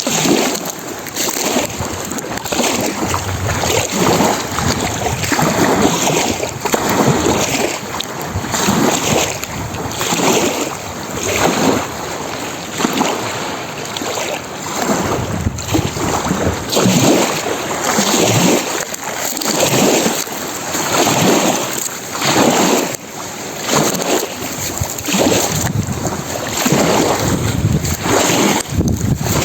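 Lake waves breaking and splashing on the shore, one wash after another every second or two.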